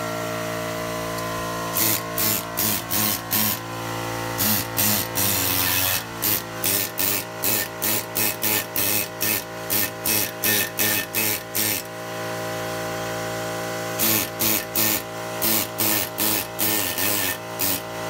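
Hand gasket scraper rasping old gasket material off the metal water pump mounting face of a Ford 302 V8 block, in runs of short strokes about two a second.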